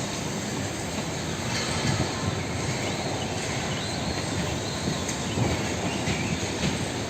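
Steady stadium crowd noise: an even, dense rumble of many people in the stands, with no single voice standing out.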